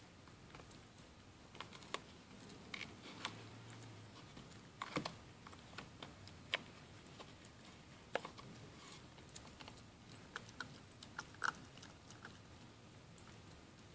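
A puppy gnawing a hard chew stick: irregular sharp clicks and crunches of teeth on the chew, with a few louder ones about halfway through and again near the end.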